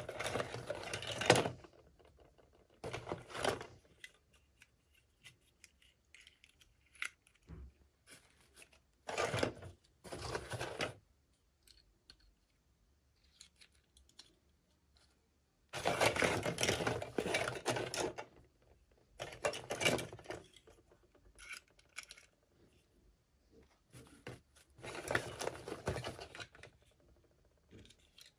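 Toy doll packaging being handled and torn open by hand: repeated bursts of rustling and tearing, each a second or two long, with short pauses and small clicks between them.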